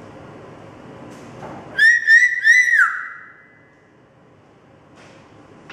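African grey parrot whistling: three quick rising whistle notes about two seconds in, the last one sliding down, then a held tone that fades out.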